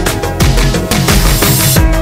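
Electronic background music with a fast, driving beat and deep bass notes; a hissing swell fills the second half and cuts off just before the end.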